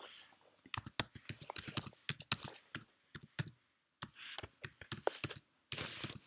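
Typing on a computer keyboard: a file name is keyed in, with keystrokes clicking in two quick runs and a short pause between them. A short hiss comes near the end.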